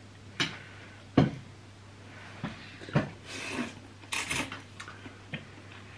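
Metal forks and spoons clinking and scraping against ceramic bowls of instant noodle soup, about five sharp knocks. Noodles are slurped in twice, a little past halfway.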